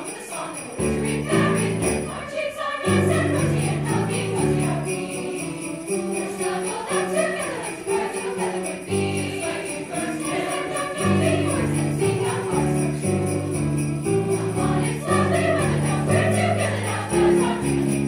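Sleigh bells shaken in a steady jingle over a large choir singing with accompaniment, the chords changing every second or so.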